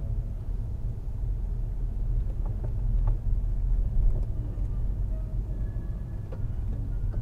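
Low, steady rumble of a car's engine and tyres heard from inside the cabin through a dashcam microphone, with a few faint scattered clicks.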